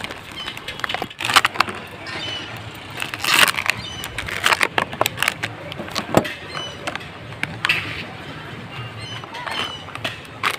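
Thin clear plastic disposable cups crackling and clacking together as they are handled, with a few sharp clicks of a stapler fastening them to each other.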